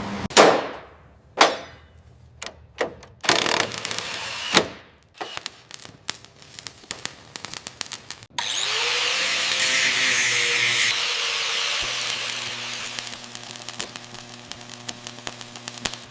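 Workshop sounds: a series of sharp knocks and clanks, then a power tool starting up about halfway through and running with a loud steady hiss and fast crackling clicks.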